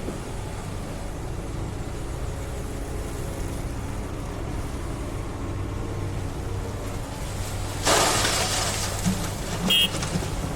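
Diesel excavator engine running steadily. About eight seconds in, a loud rush of noise lasts about a second, and a brief high squeal and clank comes near the end.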